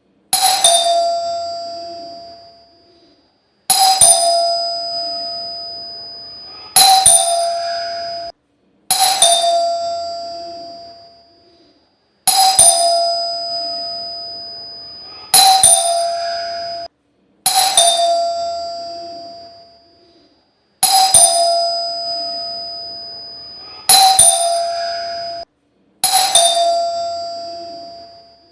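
Calling bell (doorbell) rung about ten times at uneven intervals of two to three and a half seconds. Each ring is bright and metallic, starts sharply and dies away, and several are cut off short just before the next.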